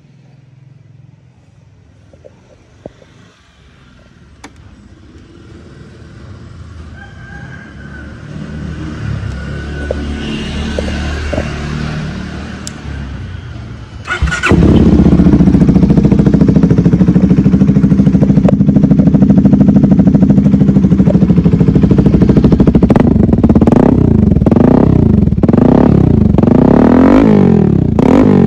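CFMoto 300SR single-cylinder motorcycle with an aftermarket Austin Racing exhaust. The engine starts suddenly about halfway through and idles loudly and steadily. Near the end it is given a series of quick throttle blips, its pitch rising and falling with each one. Before the start there is only a quieter low rumble that slowly grows.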